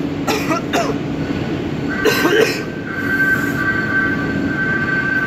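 A man coughing into his hand after eating an extremely hot pepper chip: two quick coughs near the start and a heavier one about two seconds in. Underneath is a steady mechanical hum, and a high whine joins it from about two seconds in.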